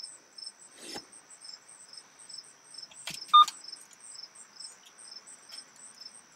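Cricket chirping steadily, about two to three high chirps a second. A short electronic beep a little over three seconds in stands out as the loudest sound, with a couple of faint clicks around it.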